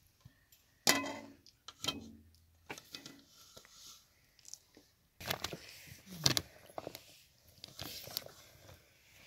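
Irregular metallic clinks and knocks of dishes and utensils, with a few louder ringing strikes about a second in and again around six seconds in.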